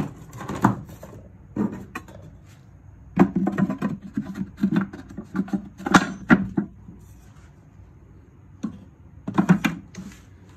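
Objects knocking, rattling and scraping in a wooden toolbox as it is handled. The irregular knocks come in clusters about three, six and nine and a half seconds in.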